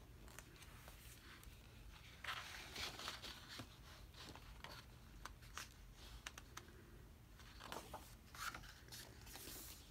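Pages of an album's photobook being opened and turned by hand: faint paper rustles and soft ticks, with a cluster of page-turn sounds about two seconds in and another near the end.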